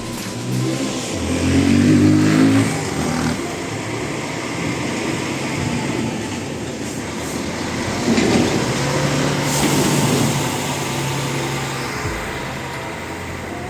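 Street traffic: a motor vehicle's engine revs up and passes loudly in the first few seconds, then another vehicle goes by about eight seconds in with a steady engine hum that fades near the end.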